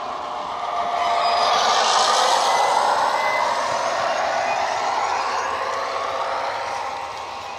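Model railway sound decoder playing Wheeltappers' Irish 141 class diesel engine sound through a small double speaker as the model locomotive passes close by. It swells about a second in and fades away near the end as the train moves off.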